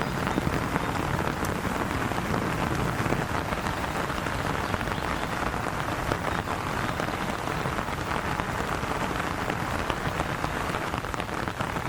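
Steady rain falling, a dense patter of many small drop impacts.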